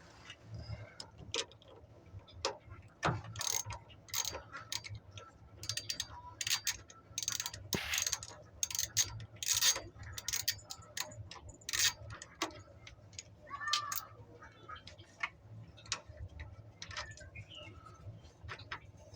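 Hand tools working on the battery cable bolts: a ratchet wrench clicking in short irregular runs, with sharp metal clinks, as the old battery cables are unbolted.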